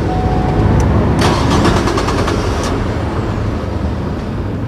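Nissan Almera engine being cranked by its starter motor without catching: the cranking-only no-start fault.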